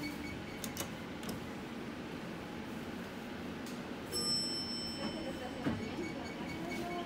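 Stainless steel push buttons on a KONE elevator's car operating panel being pressed. They give a few light clicks over the cab's steady hum, with a short high beep about four seconds in.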